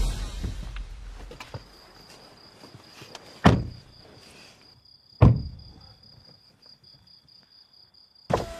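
Music fading out, then crickets chirping in a steady pulsing trill, with two car doors shutting about a second and a half apart. Music comes back in near the end.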